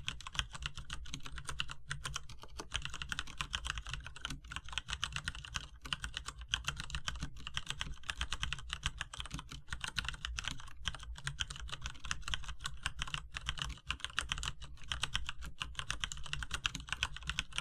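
Continuous fast typing on a Cherry MX Board 3.0 mechanical keyboard with tactile MX Brown switches and dye-sublimated PBT keycaps: a dense run of key clacks, several strokes a second, with brief pauses now and then.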